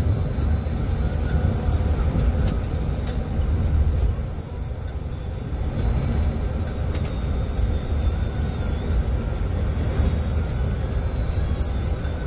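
Steady low rumble of an intercity bus on the move, engine and road noise, with short rattles, and music playing over it.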